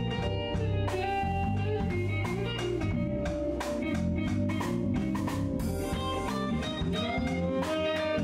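Small live band playing an instrumental blues-jazz groove: electric bass, electric guitar and drum kit, with a lead line of held, bending notes over the bass and a steady beat.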